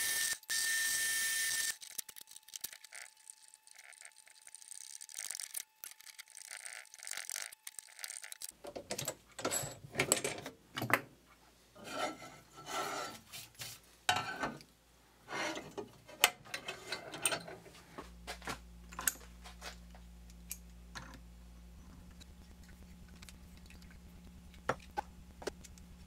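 Benchtop drill press drilling a hole in an aluminium part, with a steady high whine that stops abruptly about two seconds in. After a quiet stretch comes a long run of irregular metallic clicks and scrapes as the mounting holes are tapped by hand with an M5 tap, ending in a low hum with only the odd tick.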